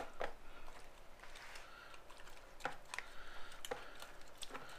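Scattered light clicks and taps at irregular spacing as cooked chicken is pulled off the bone and shredded in a plastic tub.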